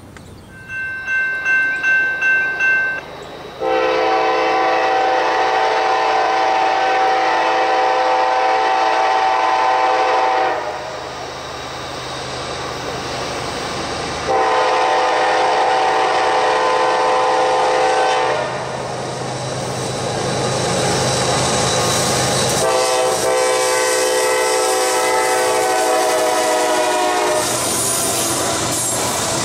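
Diesel freight locomotive's multi-chime air horn, sounded in three long blasts as a Kansas City Southern-led train approaches, with the rumble of the engines and the clatter of wheels on rail growing as the locomotives pass. A short run of pulsing ringing tones comes first, in the opening seconds.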